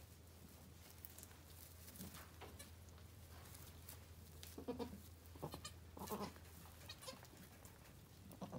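Myotonic goats bleating: a few short calls about halfway through and another near the end, over a low steady hum.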